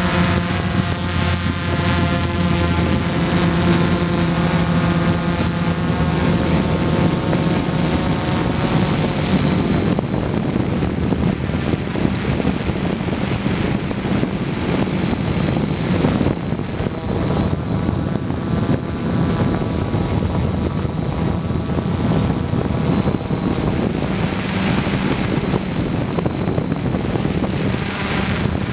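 Gaui 330X-S quadcopter's brushless motors and propellers in flight, heard from the camera on board: a steady multi-tone whine at first, giving way after about nine seconds to a rough, fluttering rush of propeller wash and wind on the microphone.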